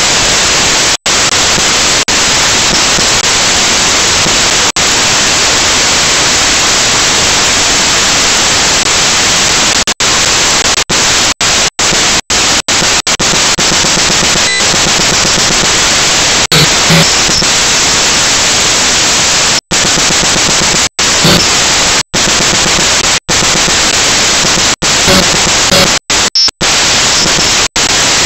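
Loud, steady static hiss on the drone's onboard camera audio, with no motor or propeller tone, cutting out to silence for an instant many times, most often near the end.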